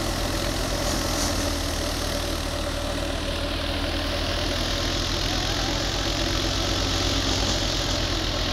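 Tractor engine running steadily, driving a wheat thresher, with the thresher's even rushing noise over the engine's low drone as wheat sheaves are fed in.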